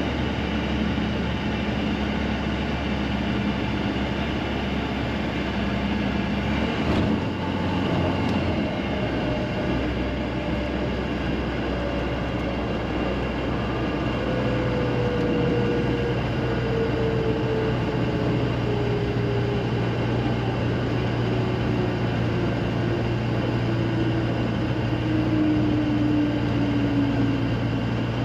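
Bristell NG5 light aircraft's piston engine and propeller running at low power as the plane rolls along the runway after landing, heard inside the cockpit. A steady drone, with a faint whine that slowly falls in pitch through the second half as the aircraft slows.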